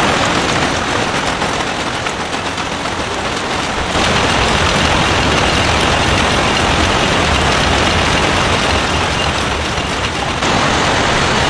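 Matchbox-making machinery running, a loud, dense, continuous clatter. The sound shifts abruptly about four seconds in and again near the end.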